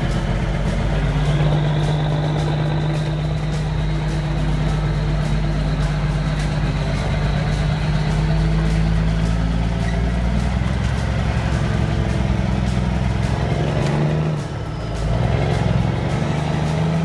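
Diesel engine of the Duel movie semi truck running under load, heard from inside the cab. About two-thirds of the way through the engine note drops away briefly, as at a gear change, then picks up again and rises slightly near the end.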